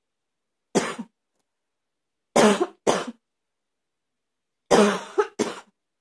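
A person's barky cough: one harsh cough about a second in, two more around two and a half to three seconds, and another two close together near the end.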